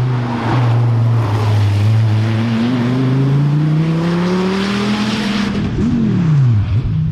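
Dodge Viper ACR's 8.4-litre V10 engine under hard acceleration, its note climbing steadily through a gear. About six seconds in the driver lifts off, the revs fall, flick up in a quick blip and drop again.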